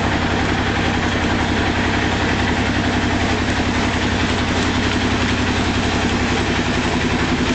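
An engine running steadily at an even speed, with a fast low pulsing beat that does not change.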